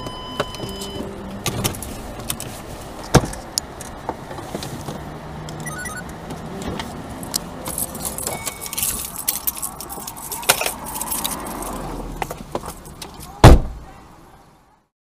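Car cabin noise as the car rolls to a stop, with scattered clicks and light rattles. A single loud sharp bang comes near the end.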